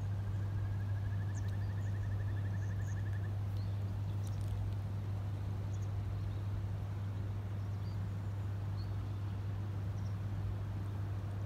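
Outdoor riverside ambience: a steady low rumble throughout. For the first three seconds there is a rapid animal trill that rises slightly in pitch, and a few faint, short, high chirps are scattered through it.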